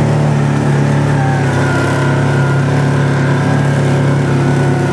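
Kawasaki Teryx 800 side-by-side on snow tracks, its V-twin engine running at a steady speed, heard from inside the cab.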